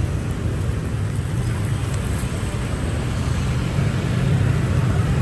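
Steady rumble of busy city street traffic, swelling a little near the end.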